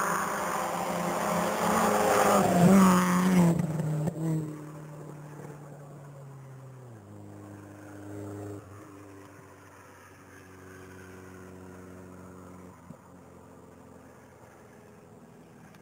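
Rally car engine at full throttle, getting louder as the car approaches and loudest about two to three seconds in. The note then drops as the car passes and fades as it drives away, with a further step down in pitch about seven seconds in.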